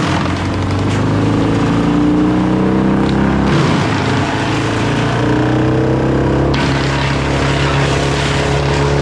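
Wood chipper running at full throttle while branches are fed in, its engine note dipping under load twice and recovering, over the rough crunch of wood being chipped.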